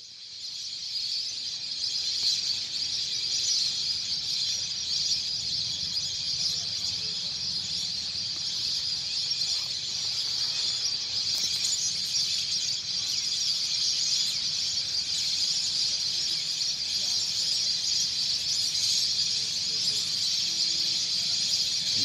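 A dense, steady, high-pitched chorus of many calling animals, starting suddenly and holding unchanged.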